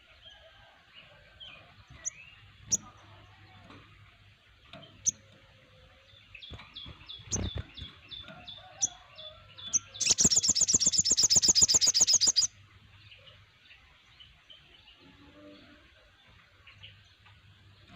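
Birds chirping and calling in a morning chorus of scattered short notes and a quick run of falling chips. Near the middle comes a loud, very rapid trill lasting about two and a half seconds.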